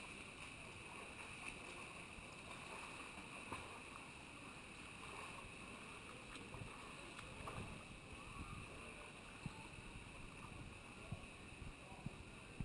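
Faint indoor pool hall ambience: a steady hiss with the light splashing of swimmers doing front crawl, and a few small sharp splashes in the second half.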